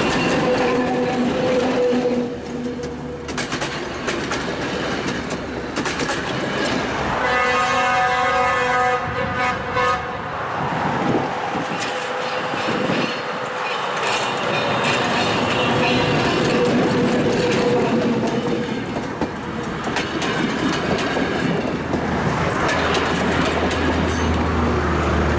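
ČKD T669 diesel locomotive passing close with its engine running, sounding its horn for about three seconds roughly a quarter of the way in. Its passenger coaches then rattle past, wheels clacking over the rail joints.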